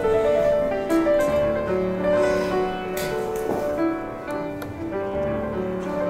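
Background music: a melody of held notes changing pitch every half second or so.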